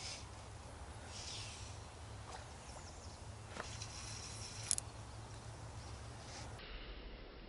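Small birds chirping on and off over a steady low rumble, with one sharp click about two-thirds of the way in.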